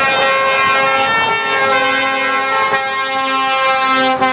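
Lorry air horns sounding a long, steady multi-note chord, with a lower note cutting in and out several times from about halfway through, over the noise of passing trucks.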